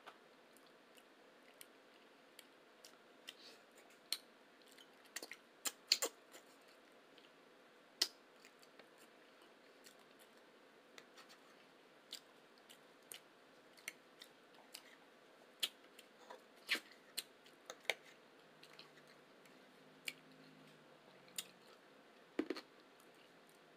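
Close-miked eating sounds: chewing with irregular sharp clicks and smacks, scattered unevenly throughout, some much louder than others.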